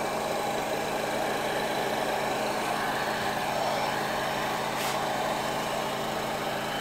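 Handheld hot air gun running steadily, blowing hot air over a freshly sprayed coat of water-based paint to dry it.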